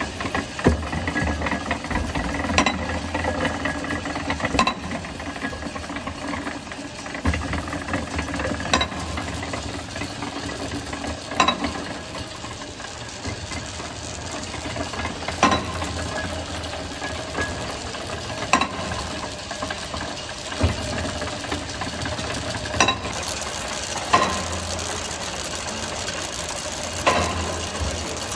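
Small steam barring engine running, driving the barring gear that slowly turns a beam engine's flywheel into position: a steady mechanical clatter with a sharp clank every two to four seconds.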